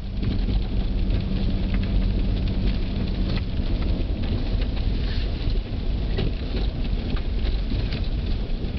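A car driving slowly on snow-covered streets, heard from inside the cabin. Tyres rolling over snow and the engine make a steady low rumble, with scattered crackles and clicks throughout.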